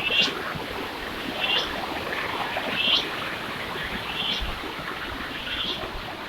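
Short, high, chirping call repeated at an even pace about every second and a half, over a steady hiss of background noise.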